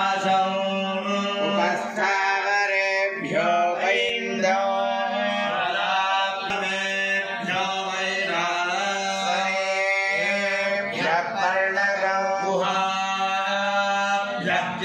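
Hindu ritual mantras chanted in a continuous melodic recitation, the voice holding and gliding between notes over a constant low drone.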